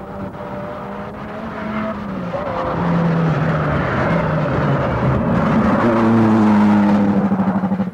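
Rally car engine at full throttle on a tarmac stage, approaching and passing close, its note stepping up and down through the gears. It grows louder as the car nears, is loudest near the end, then cuts off sharply.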